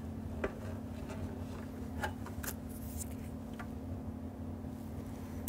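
Light clicks and taps from an aluminium amplifier chassis and its wiring being handled and turned by hand, a handful of faint knocks over a steady low hum.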